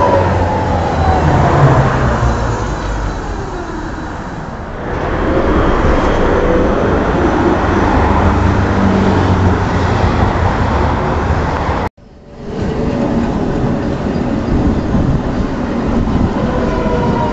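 Articulated trams, Tatra KT4D type, running past at close range: a steady rail rumble with a whine that glides up and down in pitch as they accelerate and brake. About twelve seconds in the sound cuts out for a moment.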